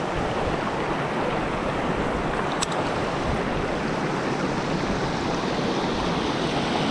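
Steady rush of river water pouring over and through a small weir of rocks and piled brush. One light click sounds about two and a half seconds in.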